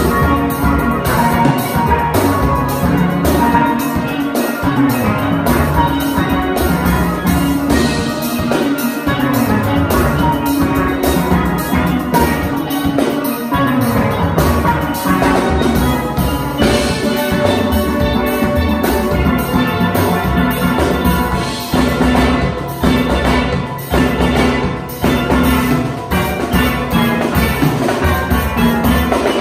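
A steel orchestra playing live: tenor, double-second, cello and bass steel pans sounding a melody and chords together, with a drum kit keeping the beat.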